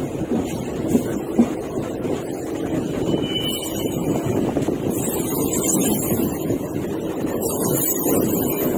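Rumble of a train's wheels and running gear as it moves slowly over the tracks, heard from its open doorway, with two sharp knocks about a second in and wind on the microphone.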